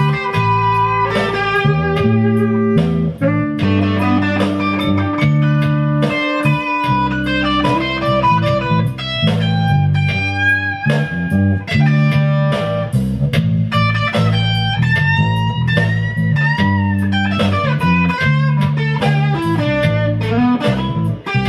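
Live instrumental jam by a small band: tenor saxophone over electric guitar and electric bass, with the bass keeping a steady line. The lead starts with long held notes and moves into quicker phrases with bent notes, and the music fades out near the end.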